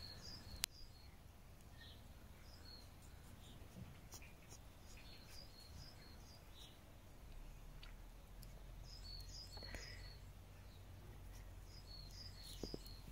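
Faint songbird chirping in short clusters of quick high notes, several times over, against a low steady outdoor rumble.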